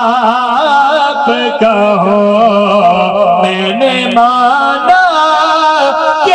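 Male voices chanting a slow, drawn-out devotional melody without a break, the pitch wavering and stepping between held notes: the sung backing of a naat recitation.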